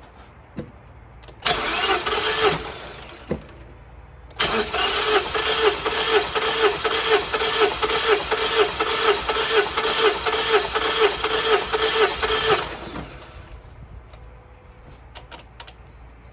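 The starter cranks a 2014 Mazda 3's 2.0L four-cylinder without it firing, spark plugs out for a compression test on the last cylinder. There is a short crank about a second and a half in, then a longer crank of about eight seconds with an even pulsing beat that cuts off.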